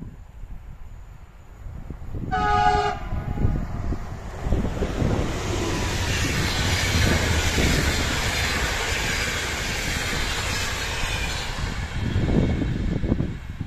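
Electric Intercity passenger train hauled by a Siemens ES64U4 Taurus locomotive (PKP Intercity EU44). The locomotive sounds one short horn chord about two seconds in, then the train passes at speed with a long rushing noise of wheels on rails that holds for several seconds as the coaches go by and eases off near the end.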